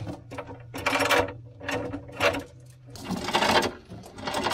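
Steel anchor chain rattling and clanking as it is hauled out of the chain locker by hand, in several separate pulls.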